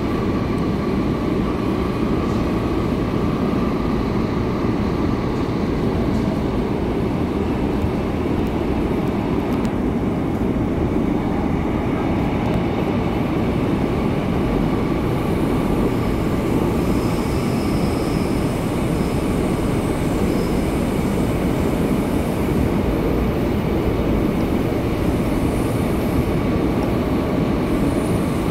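Seoul Subway Line 8 train running through a tunnel, heard from inside the passenger car: a steady, loud low rumble of wheels and running gear, with a faint steady tone riding over it.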